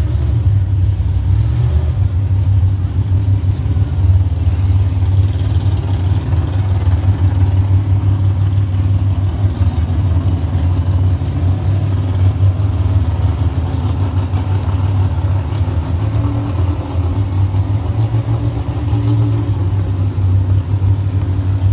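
A vehicle engine idling steadily, a loud, even, low-pitched running sound.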